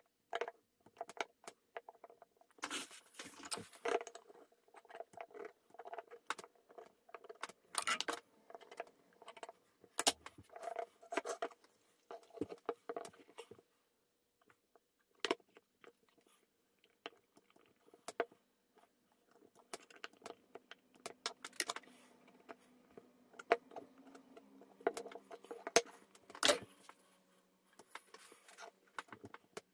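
Small wooden model parts being handled and fitted together by hand on a workbench: irregular light wooden taps, clicks and rustles, with a few busier stretches of handling.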